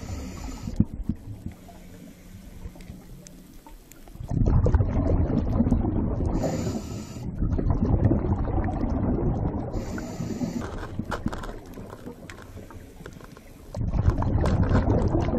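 Water washing and surging in three swells, each a few seconds long, with quieter stretches between.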